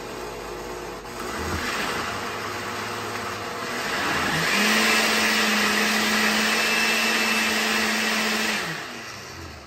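Blender motor puréeing a thick chile and chicken-stock mixture for mole. It steps up in speed about a second and a half in and again about halfway, runs steadily at the higher speed, then winds down and stops near the end.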